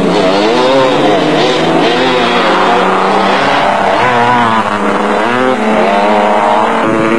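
Off-road race vehicle engines revving up and down as 4x4s drive past on a dirt and grass course, the pitch rising and falling continuously.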